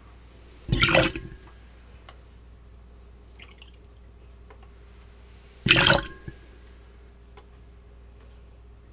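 A cocktail being poured into cups in two short splashing pours, about a second in and again near six seconds.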